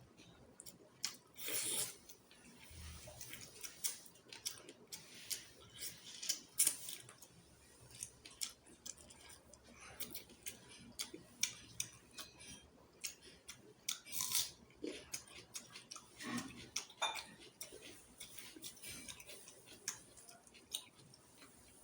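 Close-up mouth sounds of eating chicken feet in curry: irregular wet smacks, chewing and sharp clicks, with a few louder ones about a second and a half, six seconds and fourteen seconds in.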